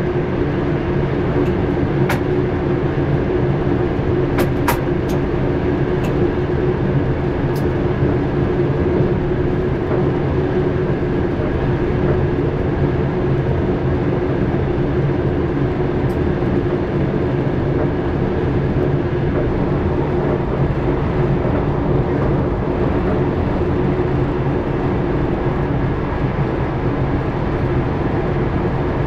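Dutch passenger train running steadily, heard from the driver's cab: a continuous rumble with a constant hum underneath, and a few short sharp clicks in the first several seconds.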